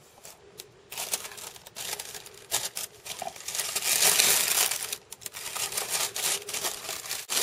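Silver tissue paper rustling and crinkling as it is pulled back inside a cardboard box, loudest about four seconds in, with scattered small clicks of the box being handled.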